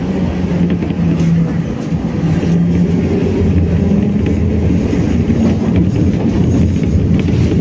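BKM-60102 tram running along the track: a steady rumble of wheels on rails and drive, with a hum that fades after about two seconds, leaving a lower rumble.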